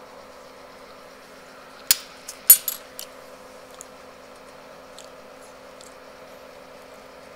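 A metal fork clinks sharply against a ceramic plate twice about two seconds in as it is set down. A few fainter ticks follow over the next few seconds, over a steady low hum.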